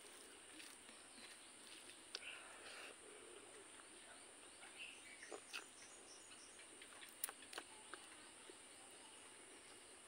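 Near silence: faint, scattered clicks and smacks of eating by hand, fingers in curried pork and rice and mouth sounds while chewing. The clearest come around five and seven seconds in, over a steady high hiss.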